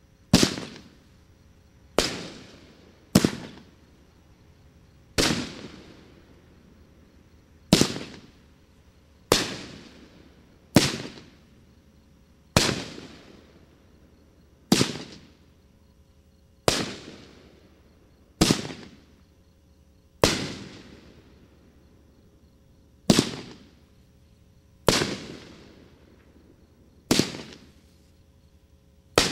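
A 500-gram aerial repeater firework cake, AAH Fireworks 'The Fast Life', firing shot after shot. Each shot is a sharp bang every one to three seconds, with a tail that dies away over a second or so.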